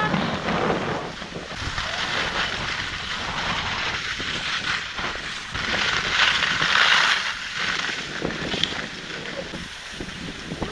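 Skis sliding and scraping over tracked, packed snow on a downhill run, with wind buffeting the microphone. A louder spell of hissing snow scrape comes about six seconds in.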